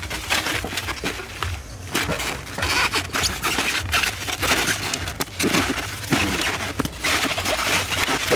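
Polystyrene foam takeaway boxes scraping and rubbing against one another and against the side of a large aluminium pot as they are stacked into it by hand, in irregular rough stretches.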